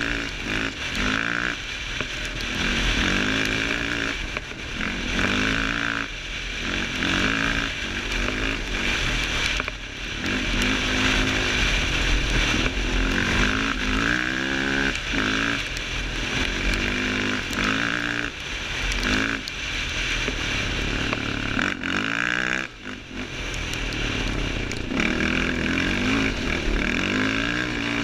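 Yamaha Raptor 700 quad's single-cylinder four-stroke engine revving hard under load and backing off again and again, its pitch climbing and dropping every second or two, with a brief let-off about three-quarters of the way through. A steady rush of wind and gravel noise runs underneath.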